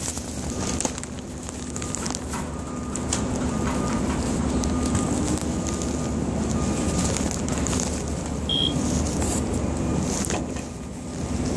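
Power grinder running steadily against rusty structural steel, a continuous abrasive grinding hiss as rust is ground off the beam.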